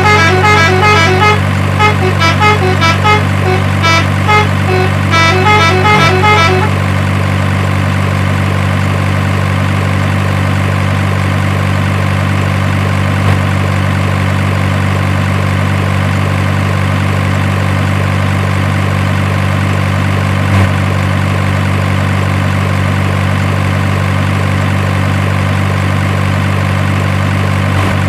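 Steady low truck-engine drone, like a truck idling. For the first six seconds or so a melody of short tooting notes plays over it, then only the drone goes on.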